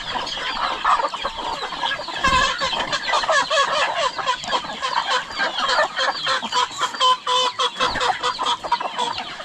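A flock of chickens clucking and squawking, many birds calling at once and overlapping.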